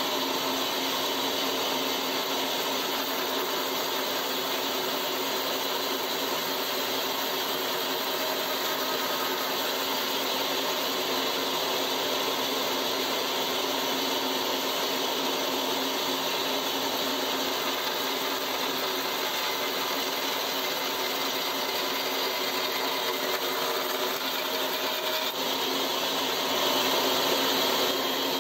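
Band saw running steadily as a small piece of fatwood, resin-rich pine, is fed through its blade and trimmed into a ring blank. It gets a little louder near the end.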